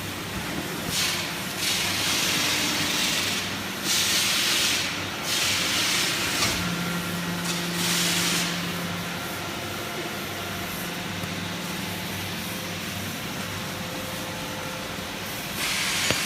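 Rice husk baling machine running with a steady motor hum, broken by about six bursts of hissing, each lasting up to two seconds.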